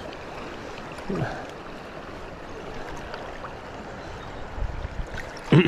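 River water running high and fast, a steady rushing around the wader. A short voice sound comes about a second in, and a louder brief one comes right at the end.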